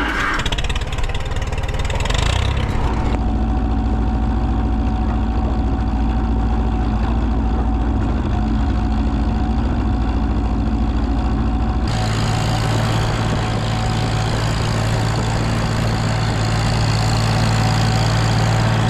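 Farm machine's engine running steadily. About twelve seconds in it gets louder and higher-pitched, as if throttled up or moving closer.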